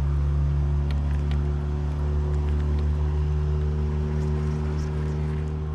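A boat's outboard motor running steadily at low speed, a constant low drone.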